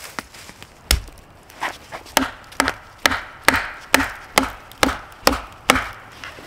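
Wood being chopped or struck with a tool: a single blow about a second in, then a steady run of about ten sharp blows, roughly two a second.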